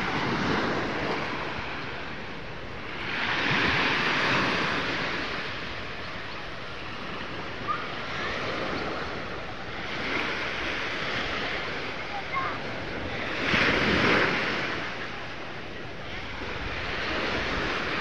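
Small waves washing up on a sandy beach. The hiss of the surf swells and fades four times, loudest with the wash about three-quarters of the way through.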